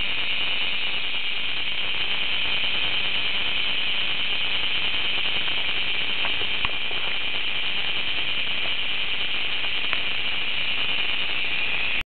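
Cicadas singing: a loud, steady, high-pitched drone that holds without a break.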